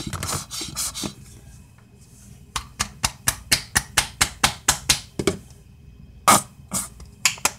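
A lotion bottle being worked by hand to get the lotion out: a quick, even run of about a dozen clicks, about four a second, then a few louder knocks near the end.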